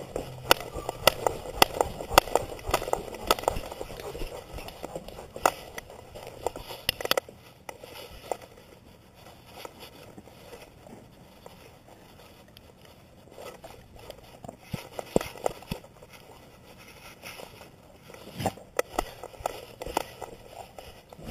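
Rustling and knocking from a GoPro strapped to a dog's back as the dog moves: fur brushing the camera housing, with a run of sharp clicks and knocks. They come thick for the first several seconds, thin out in the middle, and pick up again in the second half.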